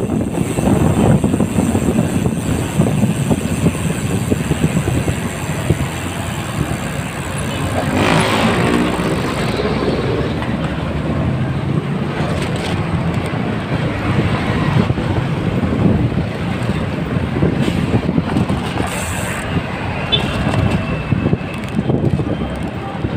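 Road traffic noise heard from a moving bicycle: a steady, uneven rumble. About eight seconds in, a vehicle's engine note rises above it for a couple of seconds.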